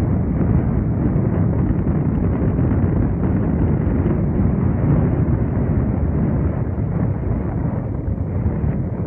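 Wind buffeting the microphone: a loud, steady low rumble with no bird calls heard.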